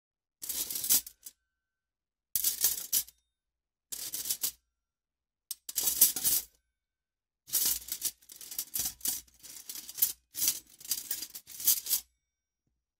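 Metal cutlery rattling and clattering inside a cutlery case as the case is moved: four short separate bursts of jingling, then a longer run of rattles lasting about four seconds.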